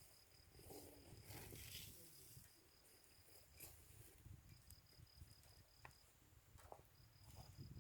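Faint insect trilling, likely a cricket, in stretches of evenly pulsed high chirps that stop and start again twice, over a low murmur with a few faint sharp clicks.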